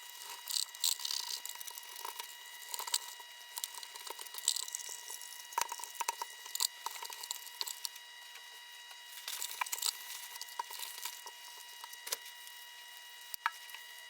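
Wiping and scrubbing the grimy plastic base of a Sony SPP-N1000 cordless phone: irregular scratchy rubbing swishes in uneven bursts, with small clicks and knocks of the base being handled.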